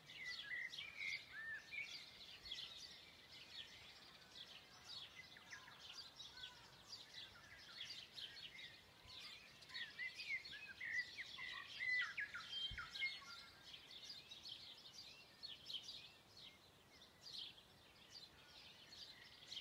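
Chorus of many forest birds singing and chirping, a dense run of quick high notes throughout, with clearer slurred whistles about a second in and again around ten to twelve seconds in.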